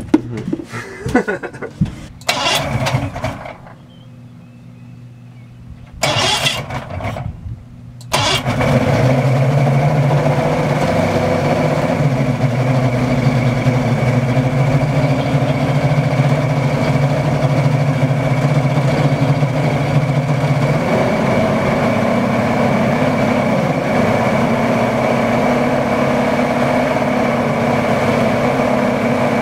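Boat motor starting about eight seconds in, after a few brief noises and a quiet gap, then running steadily.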